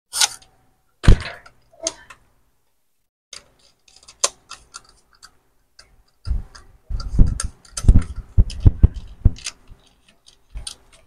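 Plastic clicks and knocks from a stand fan's parts being handled and fitted together: a few sharp clicks, then a quick scatter of small ones, then from about halfway a run of heavier, duller knocks.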